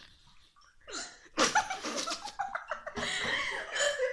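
A woman with hiccups hiccuping and laughing: about a second of quiet, then short sharp vocal bursts and laughter.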